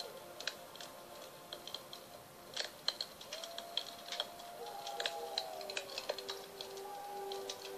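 Wood fire crackling with sharp, irregular pops, over the sustained ringing tones of singing bowls; a lower bowl tone comes in about halfway through and keeps ringing.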